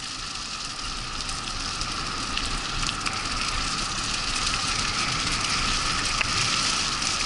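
Wheels of a dog-drawn scooter rolling fast over a leaf-covered dirt trail: a steady rushing noise with scattered small clicks, slowly getting louder.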